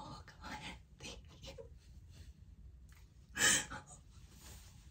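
A woman gasping and breathing hard, with one loud, sharp breath about three and a half seconds in.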